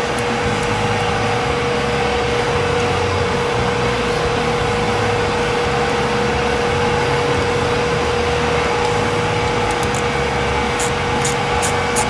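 A machine running steadily with a constant mid-pitched whine and a fluttering low rumble. Near the end, a quick run of sharp ticks starts, about four a second.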